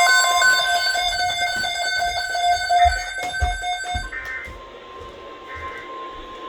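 Emergency Alert System alert tones. A loud, pulsing electronic alarm of several tones at once drops about four seconds in to a quieter, steady single tone, broken by two short buzzy bursts.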